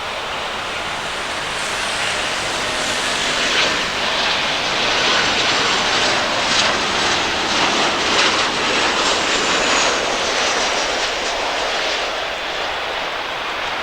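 Boeing 737-900ER jet airliner's CFM56 engines going by on landing: a rushing jet noise that swells over a few seconds, holds loudest in the middle, then eases off.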